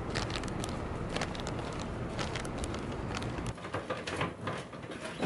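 Outdoor street ambience with footsteps and the rustle of a carried shopping bag. About three and a half seconds in it changes to quieter indoor sounds of groceries being handled at an open refrigerator, with light knocks and rustles.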